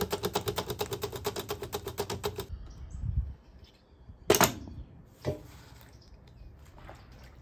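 A potato pushed rapidly back and forth over the blade of a stainless steel mandoline slicer, about eight even strokes a second, stopping about two and a half seconds in. A loud knock with a short ring comes about four seconds in, then a softer knock.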